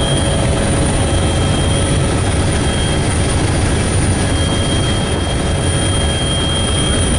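Helicopter running close by: a loud, steady low rumble with a rapid flutter, under a constant high whine.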